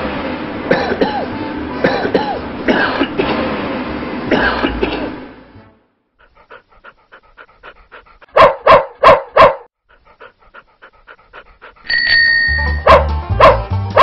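A cartoon car's engine runs for about the first five seconds, then cuts off. After a pause with faint rhythmic ticking, a cartoon dog barks four times in quick succession, and near the end upbeat music starts with a ringing bell tone.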